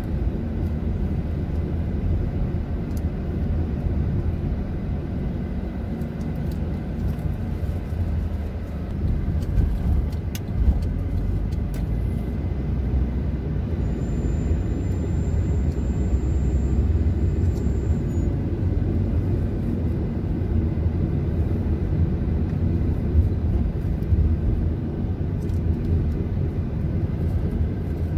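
Steady low rumble of a car being driven through city streets: engine and tyre noise, with a few faint clicks and a thin high whine for a few seconds midway.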